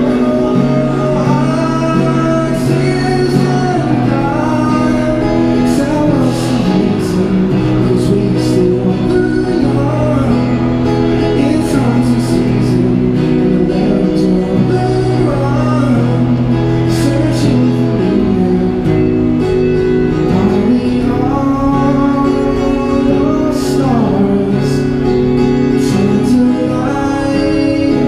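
A man singing a song into a microphone while playing an acoustic guitar, amplified through a small street amplifier.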